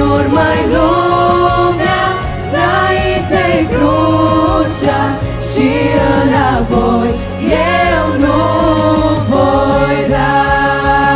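Girls' choir singing a Pentecostal worship song in Romanian over instrumental accompaniment with sustained bass notes. Near the end the voices stop and the accompaniment holds a steady chord.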